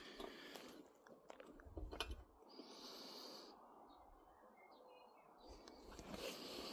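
Near silence: faint rustling, with a few short, faint bird chirps about four to five seconds in.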